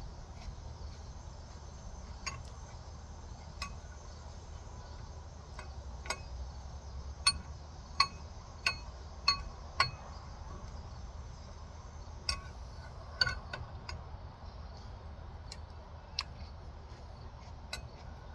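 Spoon clinking against a cereal bowl in scattered sharp, briefly ringing strikes, with a run of five louder clinks in quick succession midway, over a steady low hum.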